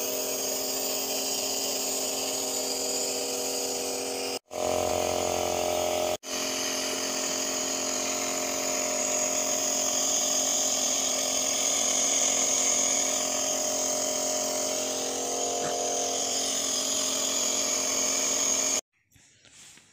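Compressor nebulizer's small electric motor running with a steady buzzing hum as it turns medicine into mist for the face mask. The hum cuts out briefly twice, around four and a half and six seconds in, and stops abruptly near the end.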